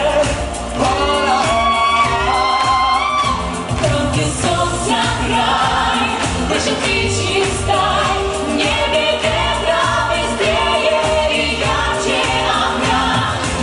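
Live pop song: a vocal trio of a man and two women singing into microphones over instrumental accompaniment, the voices held with vibrato.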